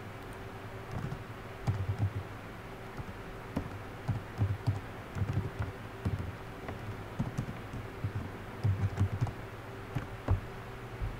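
Typing on a computer keyboard in short bursts of keystrokes, with one sharper key click near the end, over a steady low hum.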